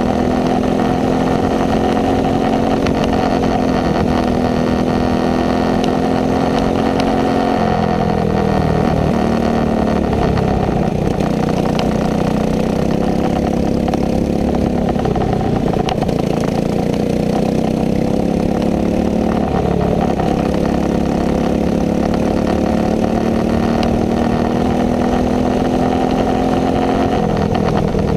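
Racing kart engine running hard and steady. Its pitch dips several times and climbs back up as the throttle is lifted and reapplied through corners.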